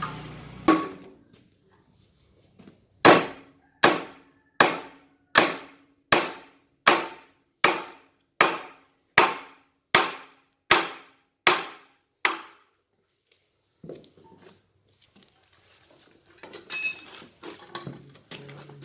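Hammer blows on the metal of a 60 kVA AvK alternator being taken apart: one blow, then a steady run of about thirteen ringing blows, a little under one a second, followed by faint knocks and clatter.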